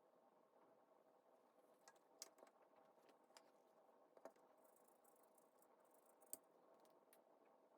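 Near silence with a faint steady room hum and a handful of soft, sharp clicks and taps of small laptop parts being handled, the loudest about two, four and six seconds in.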